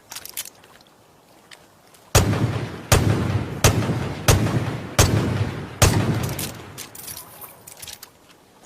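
Smith & Wesson Model 29 .44 Magnum revolver fired six times in a steady string, about two-thirds of a second apart, each shot trailing off in a ring. Lighter clicks come before the shots and after them.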